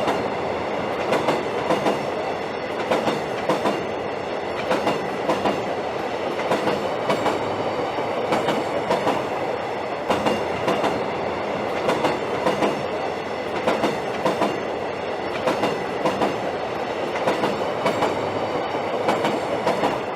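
Railway train wheels clattering over rail joints: a steady rolling noise with knocks in groups of four, as each pair of wheels on the carriages crosses a joint.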